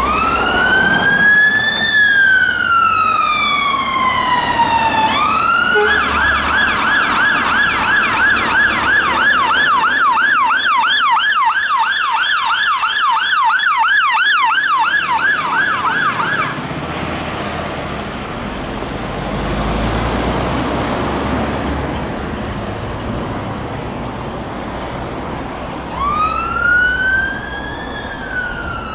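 UK fire engine's electronic siren: a slow wail rising and falling, switching about six seconds in to a fast yelp of about two cycles a second. The yelp stops just past halfway, leaving the appliance's engine and road noise, and near the end a second siren starts a slow wail.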